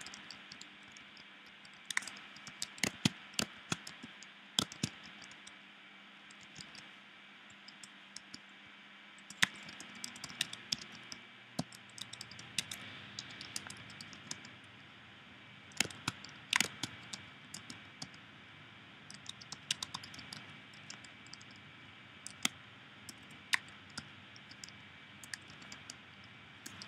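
Typing on a computer keyboard: quiet key clicks in irregular runs with short pauses, over a faint steady hiss.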